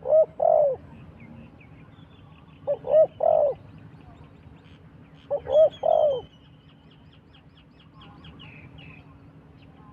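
Dove cooing: three phrases about two and a half seconds apart, each a short note followed by two longer, falling coos. Under the middle of it another bird makes a rapid run of high chirps.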